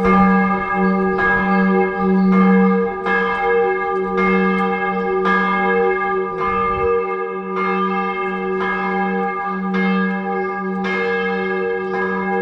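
Church bell ringing steadily, struck a little faster than once a second, each strike renewing a sustained ringing tone; this is the 6 p.m. ringing that goes on for several minutes.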